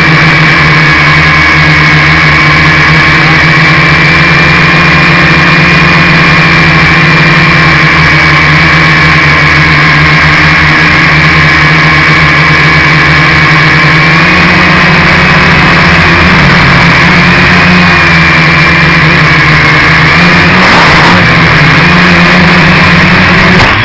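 Loud, steady buzz and whine of a small camera-carrying drone's motors and propellers, heard from on board. The pitch wavers in the last several seconds.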